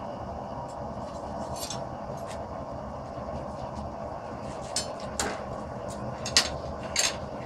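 Steady rushing roar of a running blacksmith's forge, with four sharp metal clinks and knocks in the second half, one of them louder than the rest.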